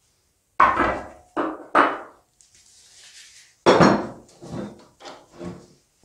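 Metal knocks and clanks as a motorcycle rear shock absorber and tools are handled against a steel bench vise: three sharp knocks in the first two seconds, then a brief hissy rustle, then a loud knock near the middle followed by several lighter clinks.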